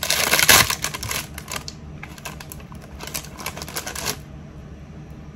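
Thin plastic bag of rice cakes crinkling as it is handled, a dense crackly rustle for the first second and a half, then shorter bursts of crinkling between about two and four seconds in.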